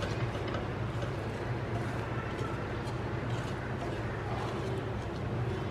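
Silicone spatula stirring and scraping scrambled eggs around a nonstick pan, in soft irregular scrapes over a steady low hum.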